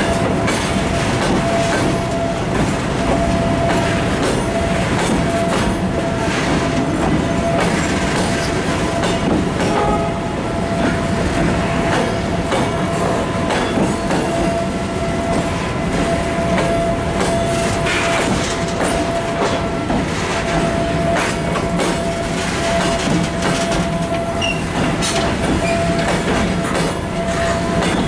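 Goods train of covered box wagons rolling past close by: a steady rumble of wheels on rails with repeated clicks over the rail joints and a thin steady whine throughout.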